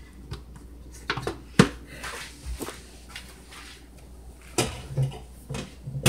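A few scattered light knocks and clinks of kitchen handling over a low steady hum, the sharpest about one and a half seconds in and a few softer ones near the end.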